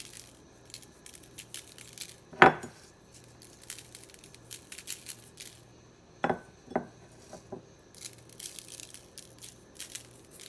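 Kitchen handling sounds while a steak is seasoned on a paper plate: a sharp knock about two seconds in, two more knocks about six seconds in, and light ticking and rattling near the end as seasoning is shaken over the meat.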